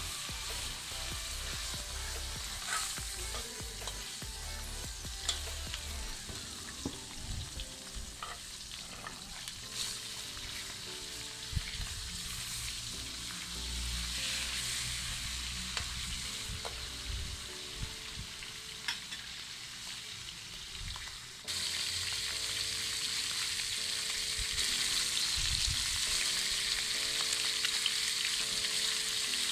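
Fish pieces frying in hot oil in a steel wok, sizzling steadily, with clicks and scrapes of a metal spatula against the wok as the pieces are turned. The sizzle gets suddenly louder about two-thirds of the way in.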